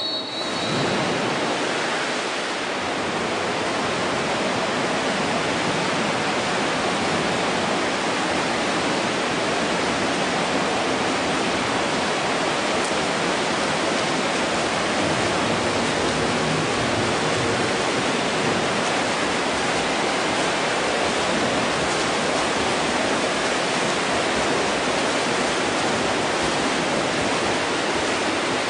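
Several swimmers splashing through a front-crawl race in a pool: a steady rushing wash of water noise that does not let up.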